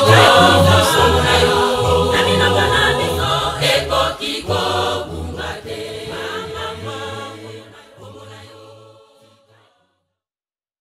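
A Kimbanguist church choir singing, with a steady low bass under the voices. The song fades out and ends a little over nine seconds in.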